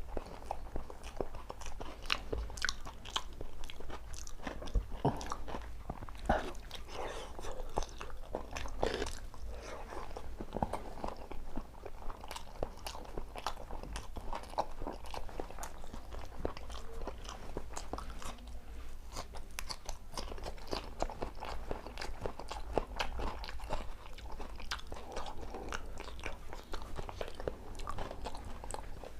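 A person eating close to the microphone: steady chewing with many crisp bites and crunches throughout.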